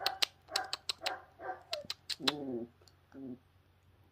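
Young puppy whimpering in short squeaks over a quick run of sharp clicks, about six a second, that stop about two seconds in. Two lower, longer vocal sounds follow.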